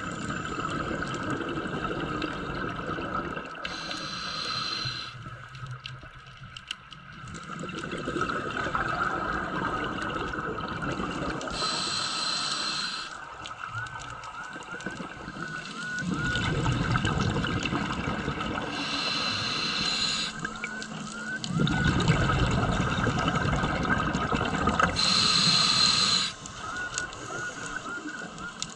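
Scuba diver breathing through a regulator underwater: a hiss of inhaled air about every seven seconds, four times, and deep bubbling rumbles of exhaled air, loudest in the second half.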